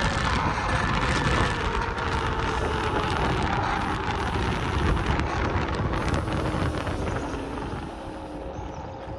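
Kaabo Wolf King GT 72-volt electric scooter being ridden at speed: heavy wind rush with a faint motor whine that slowly drops in pitch. The noise eases a little near the end.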